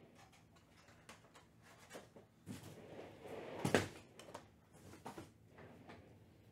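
Light tabletop handling noises from trading-card packs and cards: scattered soft clicks and rustles, with one sharper knock a little past halfway.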